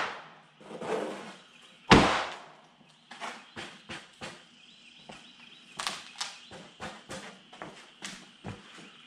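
Wooden 2x4 boards knocking and thudding as they are set down and laid out on a plywood sheet, with one loud thud about two seconds in, followed by lighter knocks and footsteps.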